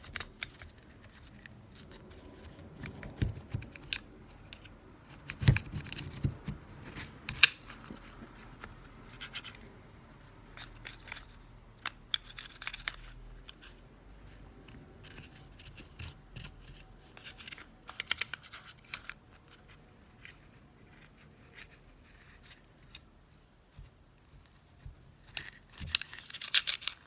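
A cloth rubbed and scrubbed over a Glock pistol frame to wipe off oil and dirt, in short bouts of scratchy rubbing with occasional light clicks and knocks of the polymer frame being handled.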